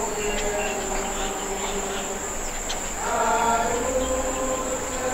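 A steady high-pitched insect drone, with several voices singing held notes together; the singing swells about three seconds in.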